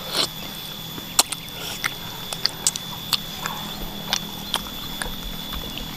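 A person chewing food close to the microphone, with irregular wet smacks and clicks, over a steady faint high tone and low hum.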